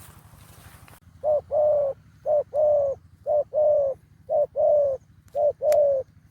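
Male decoy dove cooing at close range, repeating a short coo followed by a longer coo about once a second, five times.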